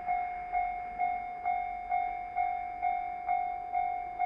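Japanese railway level-crossing warning bell ringing a steady, evenly paced clang, about two strikes a second, warning of an approaching train.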